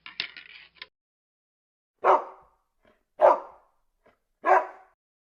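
Dog barking three times, single barks about a second and a quarter apart, after a brief faint scratchy rustle at the start.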